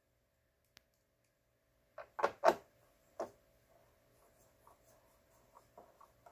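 Plastic bottom cover of a Singer 1116 sewing machine being fitted: a quick cluster of three knocks about two seconds in and one more a moment later, then a few faint screwdriver ticks near the end.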